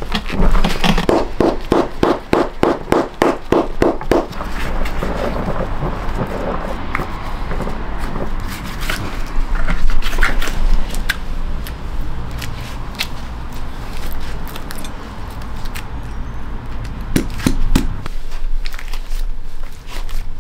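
Quick rhythmic strokes worked on a leather hiking boot by hand, about four or five a second for the first few seconds. Then scattered clicks, scrapes and knocks of handling the boot and tools, over a steady low hum.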